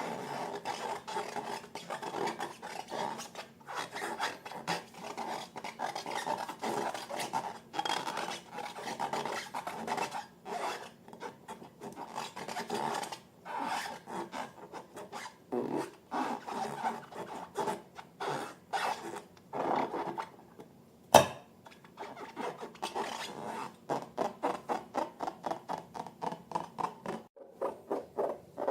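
Slime being worked by hand in close-up: a run of sticky rubbing and scraping strokes, quickening to about three even strokes a second near the end. One sharp, loud snap stands out about two thirds of the way through.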